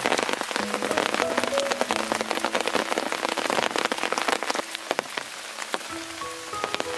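Steady rain falling, a dense hiss with many close individual drops clicking as they hit.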